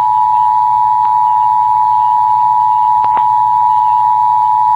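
Emergency broadcast attention signal: a loud, steady two-note tone held unbroken.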